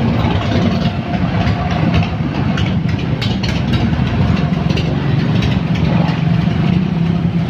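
A tour bus's diesel engine running steadily at low speed, a deep, even engine note.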